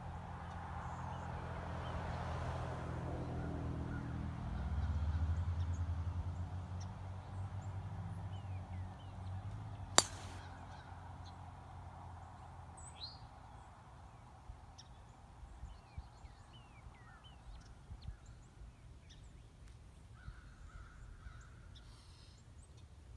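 A single sharp crack of a golf club striking the ball off the tee, about ten seconds in, the loudest sound. Before it a low engine rumble swells and fades away, and short bird calls come and go throughout.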